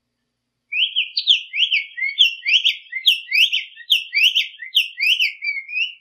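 Black-faced tanager (sanhaço-de-coleira) singing: a fast string of short, sharp notes that each rise and fall, about three or four a second, starting just under a second in.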